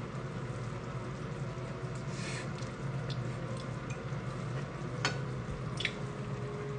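A metal fork clicks lightly on a ceramic plate twice near the end, over a steady low background hum.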